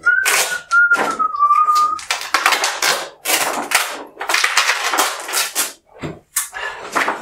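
A large paper poster being pulled off the wall and handled, crinkling and rustling in repeated loud bursts. Over the first two seconds a person whistles one note that slides slightly downward.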